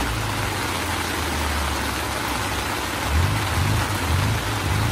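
Heavy rain pouring steadily, with a low rumble underneath that swells and fades irregularly.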